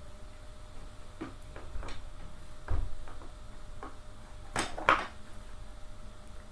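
Screw and metal chair parts being handled while a screw is started by hand: scattered light clicks and knocks, with a dull thump just under three seconds in and the two sharpest knocks close together about four and a half and five seconds in.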